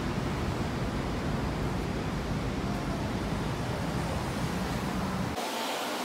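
Steady outdoor city street noise, a dense rushing with a heavy low rumble. About five seconds in the low rumble drops away abruptly, leaving a thinner hiss.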